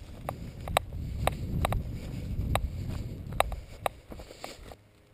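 Low wind and handling rumble on the microphone with about ten sharp, irregular clicks or snaps; the sound drops off suddenly near the end.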